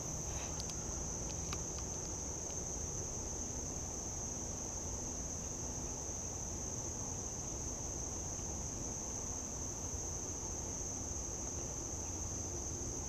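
Steady, high-pitched chorus of insects singing without a break, over a low even background hiss.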